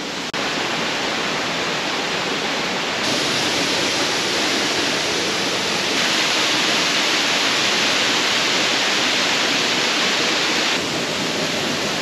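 Waterfall rushing: a steady wash of falling water, louder in steps about three and six seconds in and dropping back near the end.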